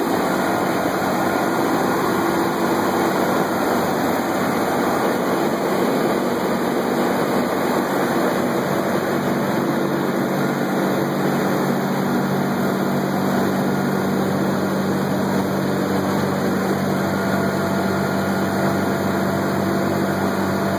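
The four Wright R-1820 Cyclone radial engines of a B-17 bomber running steadily in flight, heard from inside the nose compartment. The low hum grows a little stronger about halfway through.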